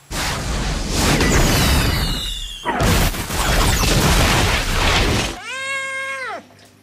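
A loud rushing rumble with a falling whistle through it, then an explosion blast from about three seconds in. Near the end comes a hairless Sphynx-type cat's single long meow that rises, holds and falls.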